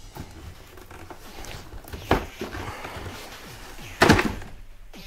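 Cardboard fireworks packaging being handled: a short knock about two seconds in, then a louder clattering thump about four seconds in as a cardboard box of stick rockets is pulled out and opened.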